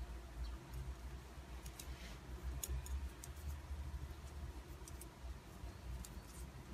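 Metal double-pointed knitting needles clicking faintly and irregularly against each other as stitches are knit in the round, with low handling rumble underneath.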